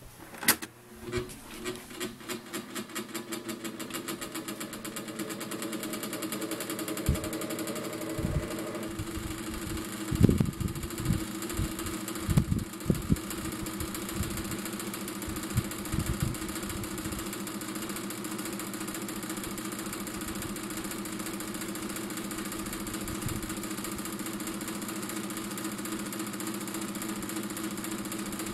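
1987 Ku Hsing 12-inch table fan switched on with a click and spinning up, its rapid pulsing quickening over the first few seconds. It settles into a steady motor hum with a rattle from its worn bearings. A few low thumps come in the middle.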